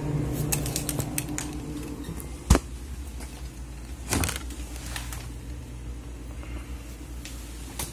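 Refrigerator doors and contents being handled: a few small clicks and rustles, then a sharp knock about two and a half seconds in and another about four seconds in, over a steady low hum.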